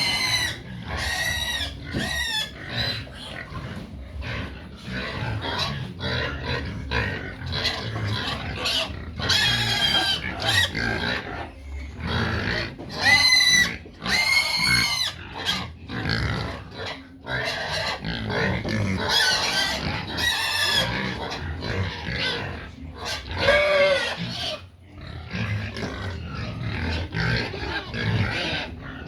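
Pigs squealing in a long run of high-pitched calls, loudest about halfway through, over a steady low noise from the herd: hungry pigs calling for feed.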